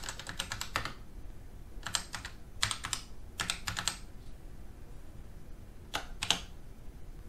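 Apple IIe keyboard being typed on: clattering keystrokes in about five short bursts with pauses between, the last about six seconds in.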